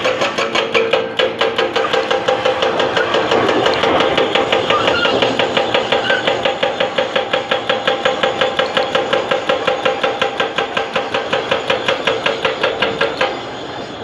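CAT D9R bulldozer working: a rapid, even clanking of about five a second over a steady whine, both stopping suddenly near the end.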